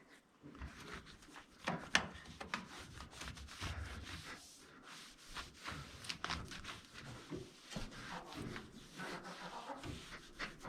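A wet cloth scrubbing along a plastic pipe in irregular rubbing strokes, with a few sharp knocks, the loudest about two seconds in.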